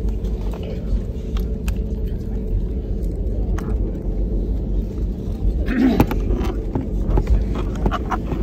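Steady low rumble of a jet airliner's engines and airframe heard from inside the cabin while the plane moves on the ground. There are a few faint clicks, and a brief louder sound about six seconds in.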